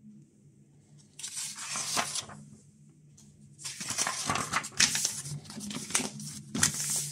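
Paper pages of an instruction booklet being turned and handled: a short rustle about a second in, then a longer stretch of rustling and flicking pages through the second half.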